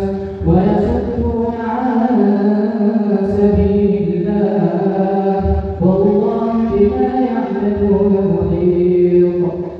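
A man's voice reciting the Quran aloud in a slow melodic chant, as an imam does in prayer. Long drawn-out notes glide between pitches, and the verses are broken by short pauses, about half a second in and again near six seconds in.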